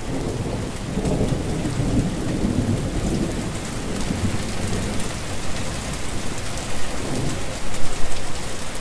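Heavy rain falling steadily on a wet surface, with a low rumble of thunder about a second in that eases off over the next few seconds.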